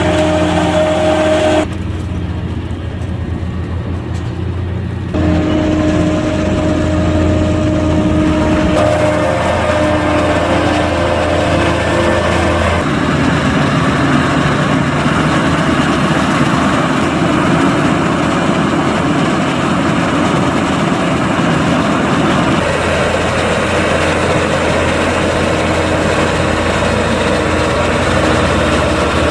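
Large diesel farm machinery running: a New Holland FR forage harvester chopping maize, then a Fendt tractor working a silage clamp. A steady low engine drone runs under everything, with steady higher tones in some stretches. The sound changes abruptly several times.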